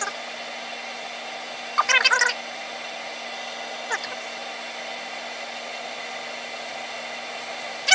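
Steady hiss with a faint low hum from a kettle of water being heated by a 5500 W electric element, the water just under 170°F. Short chirping bursts break in about two seconds in and again at the very end.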